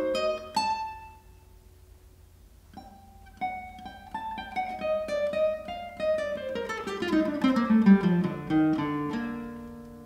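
Classical guitar played solo. A note rings and dies away into a short lull. About three seconds in, quickly plucked notes resume, with a melody that falls in pitch, and the sound thins and fades near the end.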